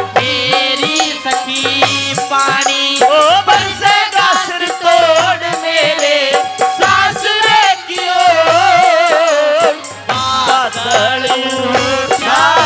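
Live Haryanvi ragni folk music: a wavering melody line over a steady low drum beat and jingling, rattling percussion.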